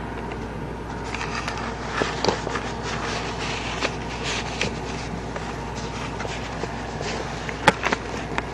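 Canvas sneakers shuffling and scuffing on a hard floor, with scattered clicks and scrapes and one sharp click near the end, over a steady background hum.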